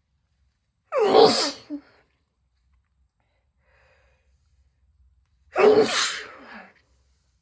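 A woman with a head cold sneezing twice, the first sneeze about a second in and the second about four and a half seconds later.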